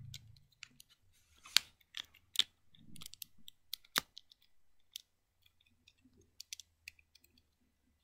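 Plastic Lego bricks clicking as they are handled and pressed together: several sharp clicks in the first half, the loudest about four seconds in, then lighter scattered ticks.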